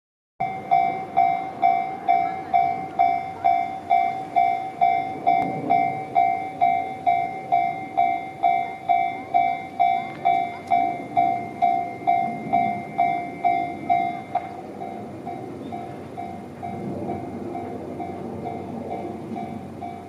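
Japanese railway level-crossing warning bell ringing its rapid repeated ding, about two to three a second, signalling that a train is approaching. About fourteen seconds in the ringing drops to a quieter level but keeps going.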